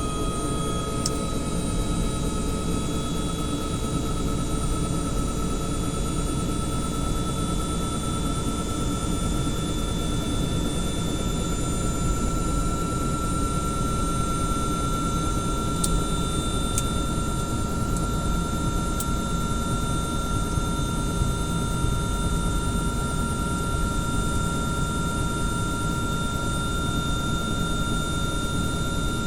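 Helicopter turbine engine running, with a steady whine that creeps slightly upward in pitch over a dense low rumble of engine and rotor.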